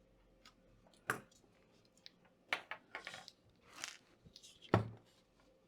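Scattered small clicks, taps and crackly scrapes of laptop parts being handled as the heatsink is taken off the motherboard, the sharpest click about three-quarters of the way in.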